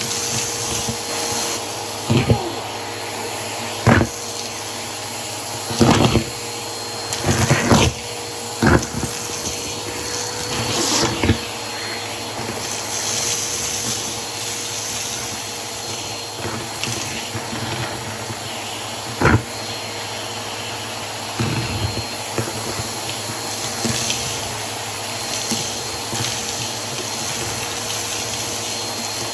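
Vacuum cleaner running steadily with a dusting brush attachment, with a series of short, sharp knocks and clatters scattered through the first two-thirds.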